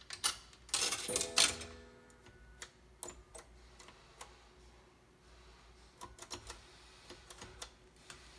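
A coin dropping through a Western Electric three-slot payphone and striking its coin-signal bell, a clatter with a short ringing tone about a second in, followed by a series of separate clicks as the touch-tone keypad is dialled.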